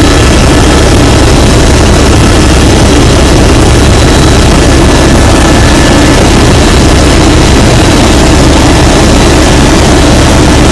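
Helicopter in flight heard from inside the cabin: steady, very loud engine and rotor noise with a thin steady high whine above it.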